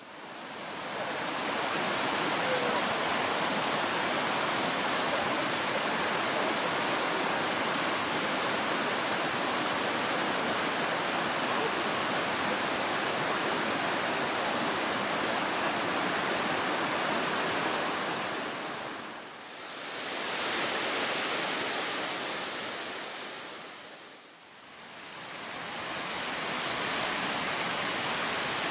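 River water rushing steadily over a rock slab and down a small waterfall, a full, even roar of falling and flowing water that dips briefly twice in the later part.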